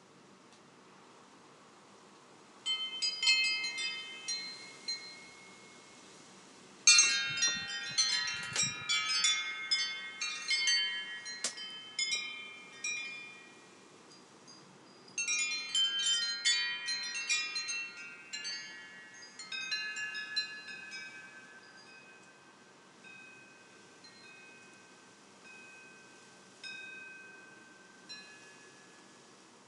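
Wind chimes ringing in bursts of overlapping strikes that ring on: a cluster about three seconds in, a louder one at about seven seconds and another at about fifteen, then scattered single strikes fading out. A brief low rumble comes under the loudest cluster.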